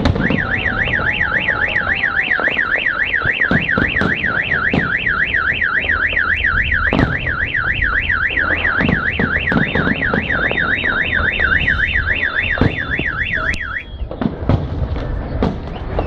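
Car alarm siren warbling rapidly up and down, several sweeps a second, then cutting off about fourteen seconds in. Firework bangs go off underneath it.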